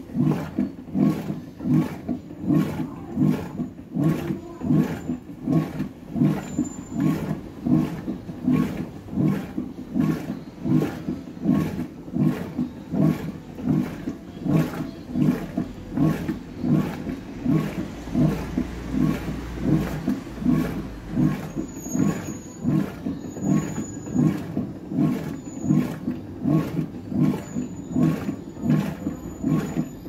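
Electrolux Ecológica LEC 12 top-loading washing machine in its wash-agitation stage: the central agitator swings back and forth, churning clothes through the water. Its rhythmic, low sloshing comes in strokes of about three every two seconds.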